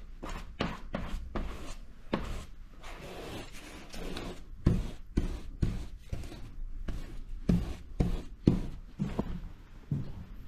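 Wide flat paintbrush scrubbing acrylic paint onto paper in quick repeated strokes, about two a second, each a short brushing rub. A few strokes land harder with a dull knock.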